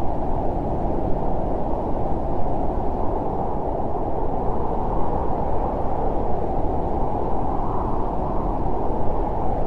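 Steady low rushing noise with nothing standing out.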